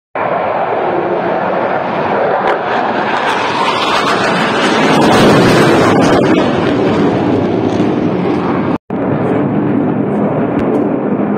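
F-16 fighter jet flying past overhead: loud rushing jet engine noise that builds to its peak around the middle and eases off again. About nine seconds in, the sound drops out for a moment at a cut in the recording.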